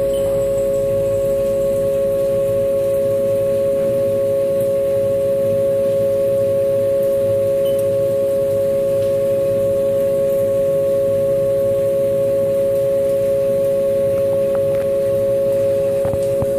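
Haas V1 CNC vertical milling machine running its program, its spindle and end mill cutting steel with a loud, steady whine and a second, lower tone beneath it, over a low rumble.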